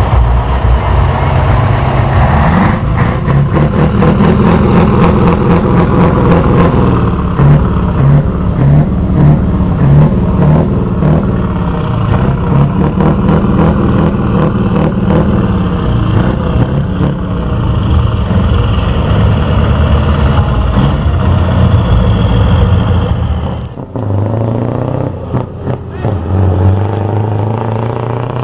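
Scania V8 truck engines running loudly at close range and being revved repeatedly, the exhaust note pulsing and swelling. About three-quarters of the way through the sound drops off, leaving a quieter truck engine farther away.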